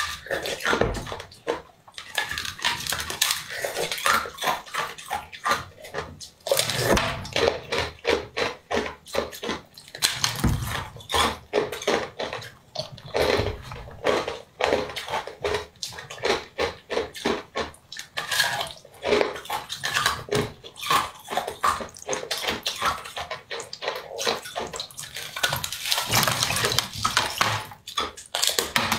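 Wet mouth sounds of eating a glossy fish-shaped jelly: sucking, slurping and chewing, with many quick wet clicks and smacks.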